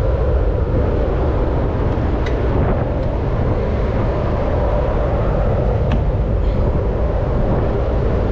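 Steady low rumble and hum of a ship's machinery heard on deck, mixed with wind on the microphone, with a couple of faint clicks as the enclosed lifeboat's hatch is opened.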